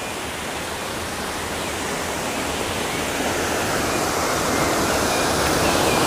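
Waterfall's rushing water, a steady roar of falling water that grows gradually louder.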